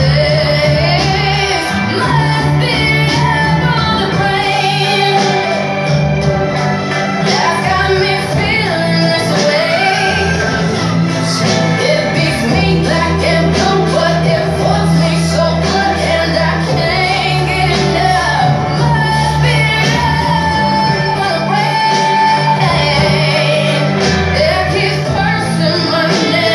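A song with a sung melody over steady accompaniment, a trova number playing for the runway.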